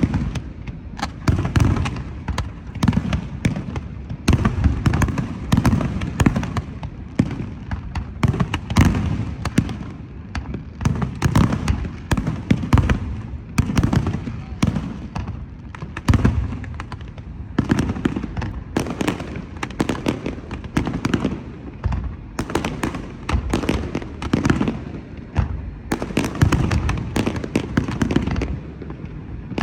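Fireworks display: a dense, continuous run of shell bursts and crackling reports, several bangs a second with deep booms among them.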